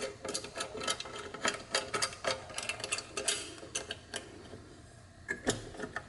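Steel C-clamp being screwed down by hand onto an aluminium plate: quick, irregular metallic clicks and rattles, several a second, thinning out after about four seconds to a couple of sharper knocks near the end.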